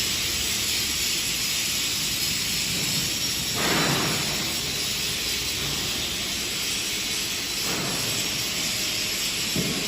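Steady hissing noise, strongest in the highs, with three brief louder whooshes: two in the middle and a short one near the end.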